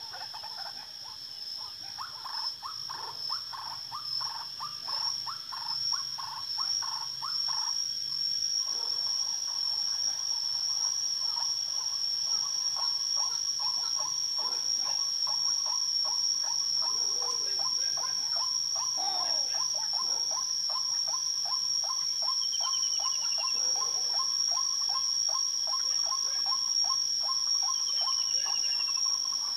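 White-breasted waterhen calling: a long unbroken run of rapidly repeated croaking notes, over the steady high shrill of insects.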